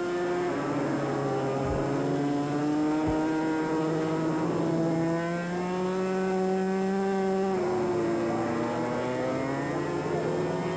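250cc two-stroke road-racing motorcycle engine running at high revs, its note holding fairly steady with slight rises and falls. About seven and a half seconds in, the note drops suddenly.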